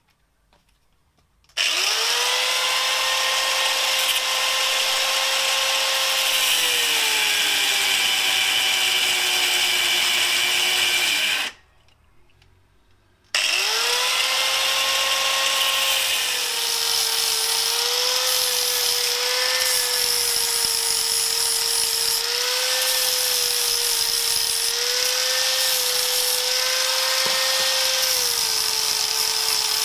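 High-speed electric grinder cutting and cleaning up a metal gear shift lever. Its whine starts abruptly, sags in pitch as it bites into the metal, stops for about two seconds partway through, then restarts and wavers up and down under changing load.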